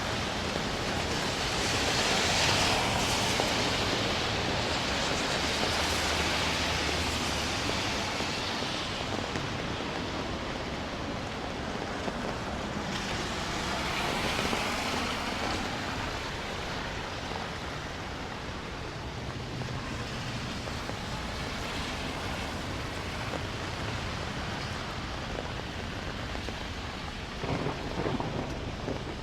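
Steady rain falling, with low rumbles of thunder that swell and fade, strongest in the first third. A brief clatter near the end.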